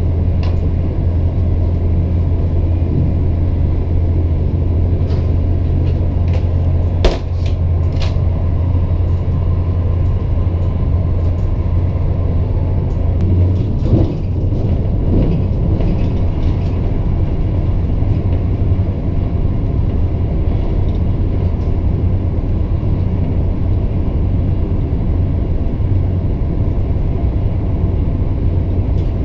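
Running noise inside an ICE 1 passenger coach at speed: a steady low rumble of wheels on rails. There are a few sharp clicks about seven and eight seconds in, and a short, rougher stretch around fourteen seconds.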